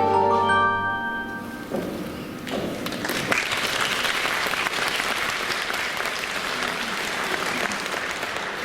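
An orchestra of Russian folk instruments holds a final chord that dies away in the first second or so, then audience applause sets in and keeps going steadily.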